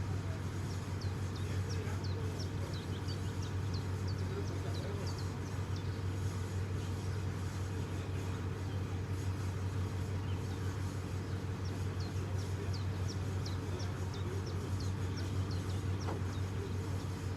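A diesel engine running steadily at an even speed, with no revving. Over it a bird gives quick series of short, high chirps, twice.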